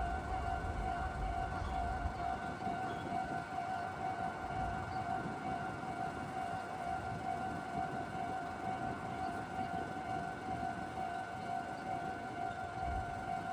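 Level-crossing warning bell ringing without a break, a rapidly pulsing electronic tone: the crossing is closed for passing trains. A low rumble underneath fades out in the first couple of seconds.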